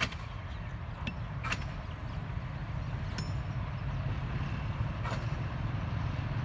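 Distant diesel locomotive approaching: a low steady rumble that grows slowly louder. A few sharp metallic clicks and clinks stand out over it.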